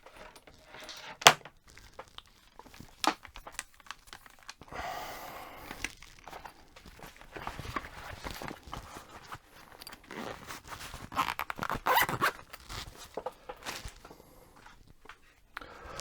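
Handling noise from working on a small headphone plug by hand: scattered sharp clicks and knocks with rustling, crackling and tearing sounds. The loudest click comes about a second in, and a busy stretch of rustling and clicks comes about two thirds of the way through.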